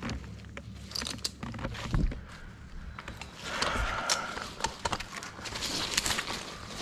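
Branches and brush crunching and scraping, with scattered sharp snaps and a louder stretch of rustling about halfway through.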